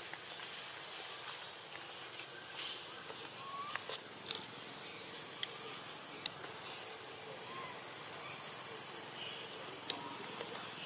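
Steady high-pitched hiss of outdoor forest ambience, with scattered faint clicks and a couple of short faint chirps.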